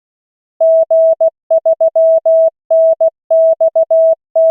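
Computer-generated Morse code (CW) tone sending a callsign at 16 words per minute. A single steady mid-pitched beep is keyed in short dits and long dahs, starting about half a second in.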